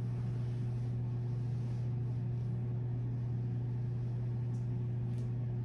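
A steady low hum with no change in pitch or level, with a few faint soft clicks near the end.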